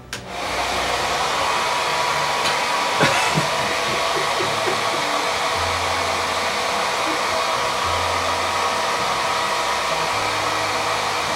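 Small handheld hair dryer switched on and blowing steadily.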